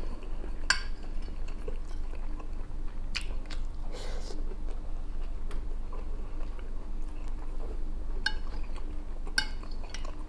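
A metal spoon clinking and scraping against a plate a few times, with chewing in between, over a low steady hum.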